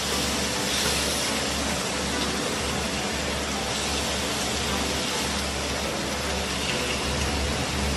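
Meat slices sizzling on a tabletop grill: a steady, even hiss, with a low hum underneath.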